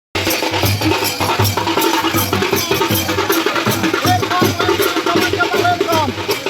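Music with a steady drum beat and busy clicking percussion, which starts just after a split-second dropout. Short sliding melodic notes come in about four seconds in.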